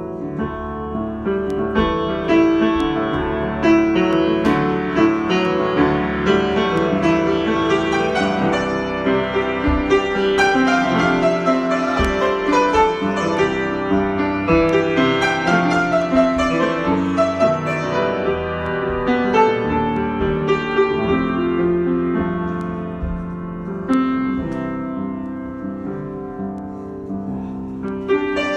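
Solo piano improvisation: a continuous flow of notes and chords, busiest through the middle and thinning out for a few seconds near the end.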